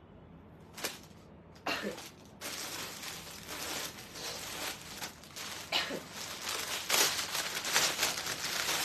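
Clear plastic garment bag rustling and crinkling as it is handled and opened. The sound starts about two seconds in and is loudest near the end.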